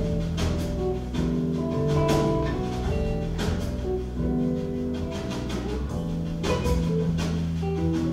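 Live band playing: guitars and keyboard carry a melody of held notes over regular drum-kit strokes.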